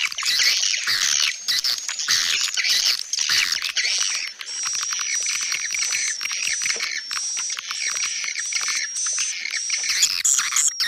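Swiftlet call-sound recording: dense overlapping swiftlet chirps and twitters, with a thin, steady high whistle-like tone joining about four seconds in. This is a lure call of the kind played to draw edible-nest swiftlets to a nesting house.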